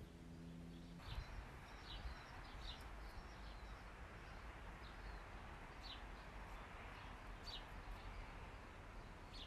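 Faint outdoor ambience: a steady hiss with scattered short, high bird chirps every second or two. A low hum cuts off about a second in.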